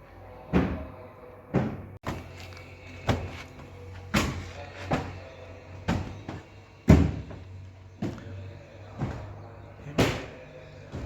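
Hammer blows on a car's sheet-metal sill panel, about fifteen sharp, irregularly spaced strikes, each with a short ring. This is a dent being worked out cold, without heat.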